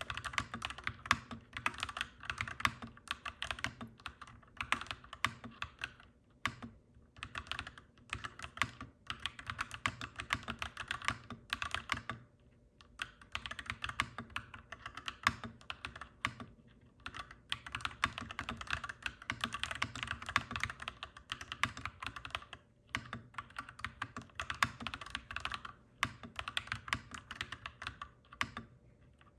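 Typing on a clacky mechanical keyboard: fast runs of key clicks and clacks in bursts, with brief pauses every few seconds.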